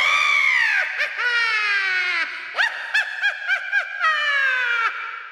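High-pitched, witch-like cackling laugh: long falling wails, then a quick run of about six short "ha" notes, then one more long falling wail that fades away near the end.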